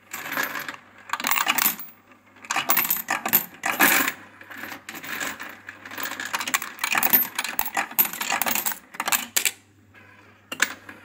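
VEVOR electric Euro coin sorter and counter running, coins clattering through it and dropping into the denomination tubes in uneven bursts over the motor's steady low hum. The clatter thins out about nine and a half seconds in as the last coins are sorted, leaving the hum and a few stray clicks.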